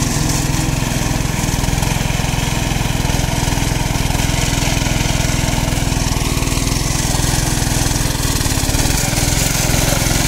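Small petrol engine of a portable abrasive rail-cutting saw running steadily at speed, its disc grinding through a steel rail with a continuous high hiss.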